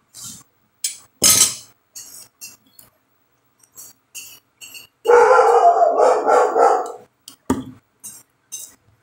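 Dog barking in a quick two-second run about five seconds in, with one more short bark a little later. Before that come scattered short clicks and taps as a pepper-sauce bottle is shaken over a plate of food.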